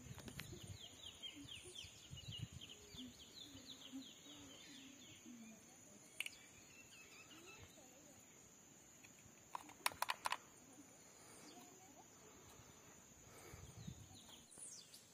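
Quiet open-air pondside ambience: a steady high thin whine with a fast run of short, falling chirps in the first few seconds, and a few sharp clicks about ten seconds in.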